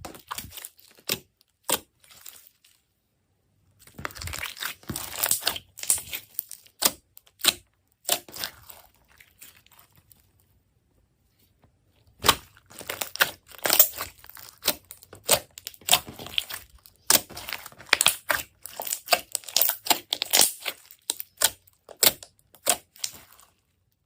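Slime being squeezed and stretched by hand, giving quick sticky clicks and crackles in bursts, with two short pauses.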